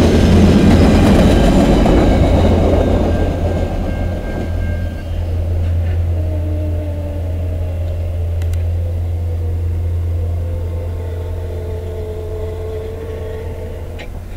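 Tail coaches of a VIA Rail passenger train rolling past on the rails, the rumble fading over the first few seconds as the train pulls away. A quieter steady rumble follows, with a faint drawn-out tone slowly dropping in pitch.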